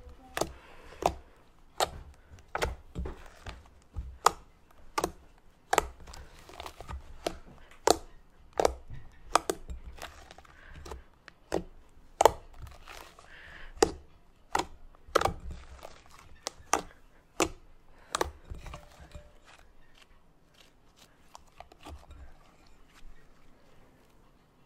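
Pink cloud slime with instant snow mixed in, squeezed and kneaded by hand in a glass bowl close to the microphone: sharp popping clicks about one or two a second over soft squishing. The pops thin out near the end as the slime is lifted and stretched.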